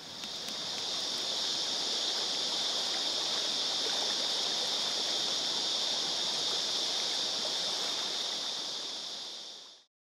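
A shallow creek bubbling over rocks, with a steady, high-pitched drone of cicadas over it. The sound fades in at the start and fades out just before the end.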